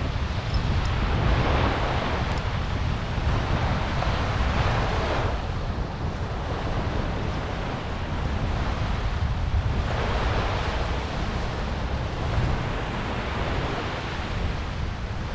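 Small surf waves washing onto a sandy shore, the hiss swelling and fading every few seconds, over a steady low rumble of wind on the microphone.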